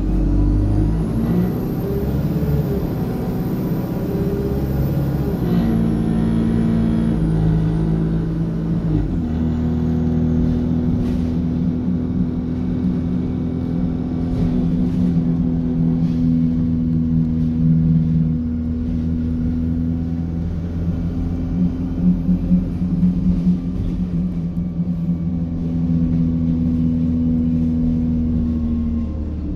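Engine cooling fan of an ADL Enviro 200 single-deck bus running with a steady hoover-like hum over the low rumble of its diesel engine, heard from inside the saloon. A faint high whistle rises at the start and fades out over the first several seconds.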